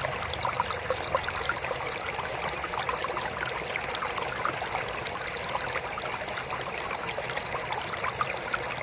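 Water trickling steadily in a mini aquarium: a continuous splashing flow dotted with many small droplet plinks.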